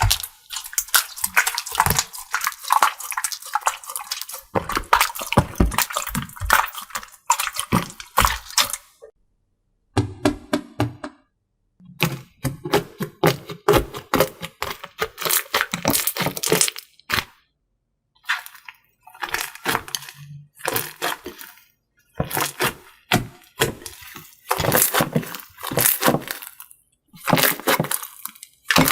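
Slime being squeezed and pressed by hand, with dense crackling, clicking and popping of trapped air. The sound comes in several stretches separated by short silent gaps.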